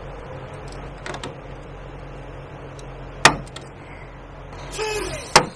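Hand rivet pliers setting blind rivets in a trailer's tail-light mount. A few light clicks about a second in, then two sharp snaps about two seconds apart, with a short squeak just before the second, over a steady low hum.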